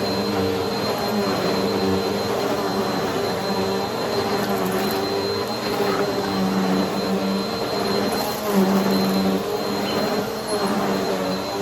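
Upright vacuum cleaner running with its brushroll spinning, a steady motor hum under a constant high whine, with the hum wavering as the machine is pushed back and forth.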